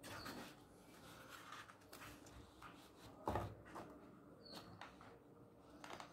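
Faint rustling and small taps of handling, with one louder knock a little over three seconds in.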